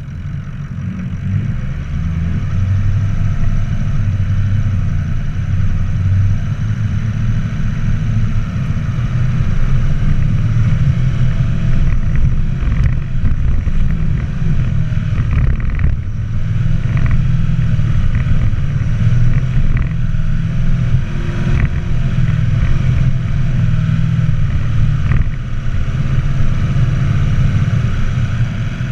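Off-road vehicle's engine labouring steadily up a steep hill climb, a constant low drone, with several sharp knocks and clatters from the rough track between about twelve and twenty-five seconds in.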